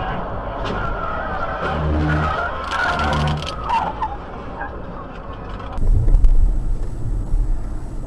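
Road and tyre noise from a car at highway speed, with a wavering squeal as it brakes hard. About six seconds in the sound cuts to the louder low rumble of another car's engine and road noise.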